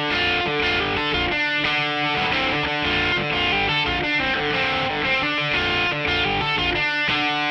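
Fighter's ring-walk music: a rock track with distorted electric guitar, playing steadily.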